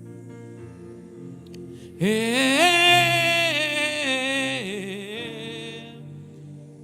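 Slow worship music: a soft, sustained keyboard pad underneath. About two seconds in, a loud wordless sung note enters, slides up, wavers with vibrato and fades out after about three seconds.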